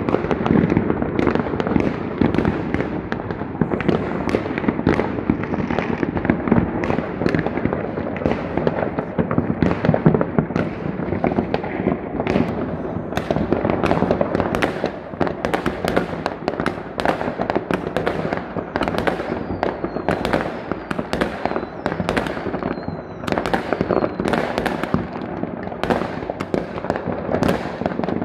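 Consumer fireworks and firecrackers going off all around: a continuous din of many overlapping bangs and crackles. About halfway through, more separate sharp bangs stand out and come more often.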